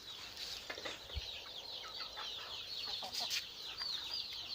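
A brood of young chicks peeping continuously, many short high cheeps that fall in pitch and overlap.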